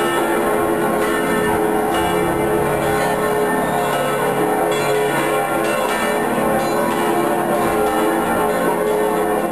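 Church bells pealing continuously, several large bells sounding together in a dense, overlapping ring.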